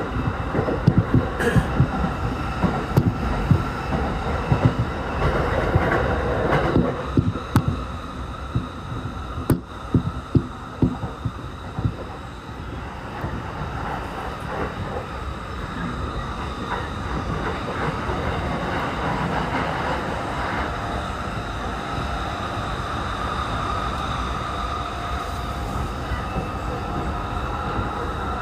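Electric commuter train running at speed, heard from inside the passenger car: wheels clacking and knocking over the track in the first half, then settling into a steadier rolling rumble with a faint whine that rises slightly near the end.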